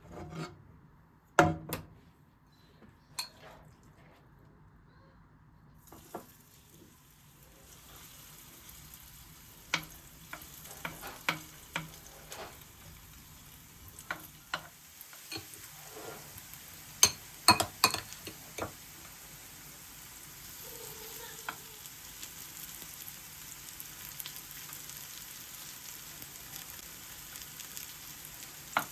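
Food sizzling in hot oil in a pan, the sizzle starting about six seconds in and growing slowly, with a utensil knocking and scraping against the pan; the loudest are a few sharp clacks a little past halfway.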